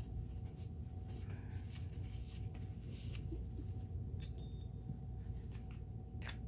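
Light handling clicks and taps over a low steady hum, with one small metallic clink that rings briefly about four seconds in.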